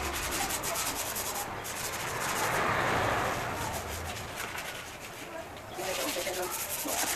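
Sandpaper rubbed by hand over plastic scooter body panels: a continuous scratchy rubbing made of quick repeated strokes, sanding down the old finish ahead of a repaint.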